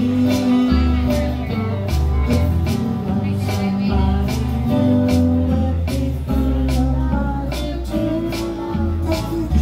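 A small live band playing a song on strummed acoustic guitars, electric guitar and electric bass, with a steady strumming rhythm over a walking bass line.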